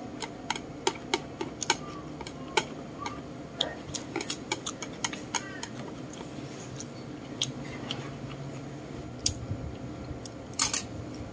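Metal spoon and chopsticks clicking and scraping against a plate while gathering the last food. The taps come quickly in the first half, then sparser, with the loudest a double click near the end.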